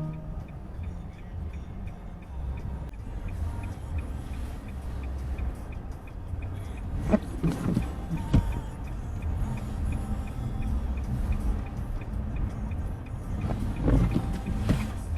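Low, steady rumble of a car driving, with a few knocks and a faint, regular ticking.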